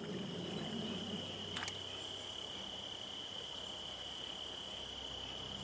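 Insects calling, likely crickets: a steady high-pitched trill with short bursts of rapid, higher chirping pulses, over the soft wash of stream water. One light click about a second and a half in.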